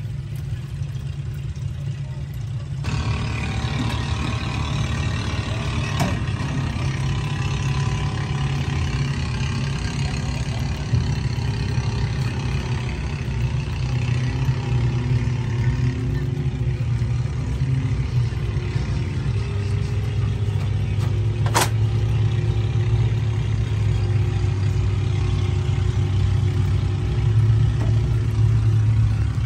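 A motor running steadily with a low hum that grows stronger in the last third. Two sharp clicks sound over it, about six seconds in and again a little after twenty seconds.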